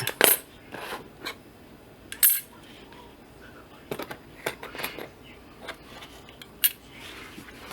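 Small metal cutting dies clinking and clicking against each other and the work surface as they are handled and laid out, in separate sharp knocks spread through the moment.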